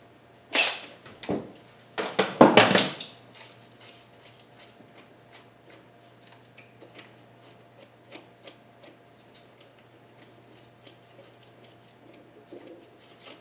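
Impact wrench on the crankshaft pulley bolt of a KA24DE engine: two short bursts, the second about a second long, that spin the bolt off. Light metallic clinks of tools and parts follow.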